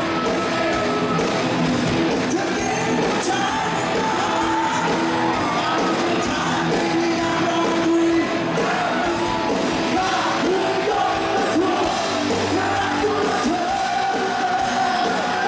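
Live rock band playing, a male lead vocalist singing over electric guitar and drums with a steady beat.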